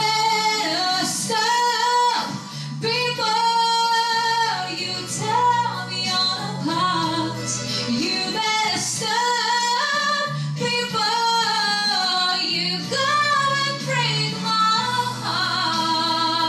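A young woman singing a slow song solo into a microphone, with long held notes, over a backing accompaniment of steady low chords.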